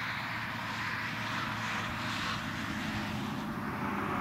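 A steady engine drone: an even rushing noise over a low hum, with no breaks.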